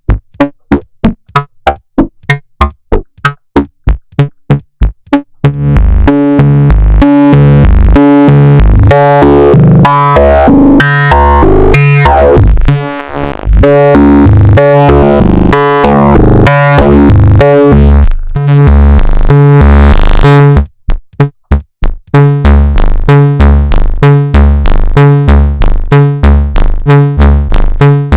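Make Noise 0-Coast synthesizer playing an arpeggiated sequence, loud. It opens with short staccato notes at about four a second. About five seconds in it becomes a fuller, bass-heavy pulsing line whose tone grows brighter as the filter opens. Near the end it drops back to short, clipped pulsing notes.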